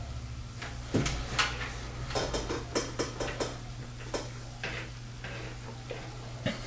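Scattered sharp clicks and small handling noises from hands and tools working on wires inside a computer case, over a steady low hum.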